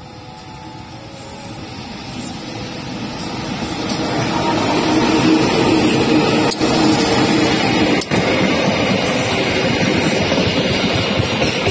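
Two diesel-electric locomotives, a CC203 and a CC201, approaching and passing close by at the head of a passenger train. The engine drone and wheel-on-rail noise grow loud over the first few seconds, then hold as a steady passing-train rumble that drops out briefly twice near the middle.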